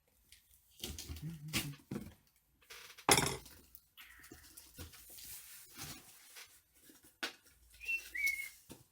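A cardboard shipping box being opened and unpacked: rustling packaging and scattered knocks, with one loud knock about three seconds in and a brief high squeak near the end.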